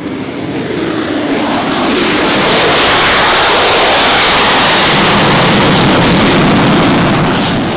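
Loud jet noise from an F-35A Lightning II's single F135 turbofan engine as the fighter flies its display. It builds over the first two or three seconds, holds loud and steady, and cuts off suddenly at the end.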